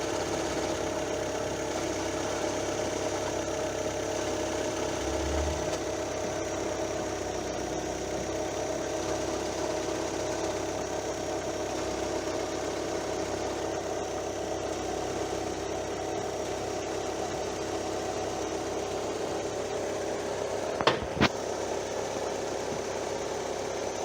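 Fiat Palio engine idling steadily, with a knocking rattle from between the engine and gearbox that comes from loose damper springs on the clutch disc, the kind that goes quiet when the clutch pedal is pressed. Two short sharp knocks stand out about three seconds before the end.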